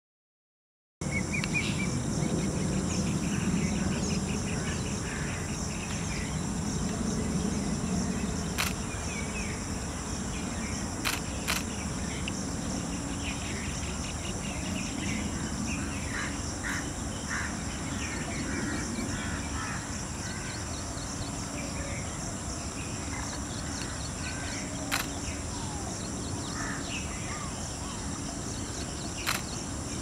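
Jungle ambience starting about a second in: a steady high insect drone with scattered bird chirps and calls over a low rumble, with a few sharp clicks.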